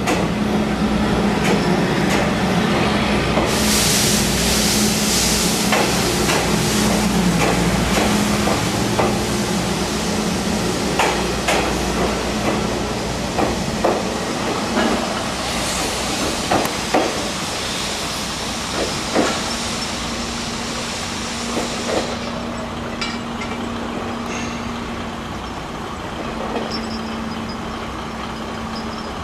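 Passenger coaches of a departing steam train rolling slowly past, with scattered sharp clicks and clanks from wheels over rail joints under a steady low hum. A hiss of steam swells about four seconds in and again around sixteen seconds, then stops about twenty-two seconds in as the train moves away.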